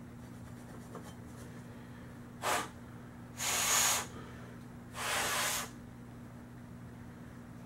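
Three puffs of breath blown hard through a Crosman 760 air rifle barrel: a short one, then two longer hissing blows. They clear out the grit left from polishing.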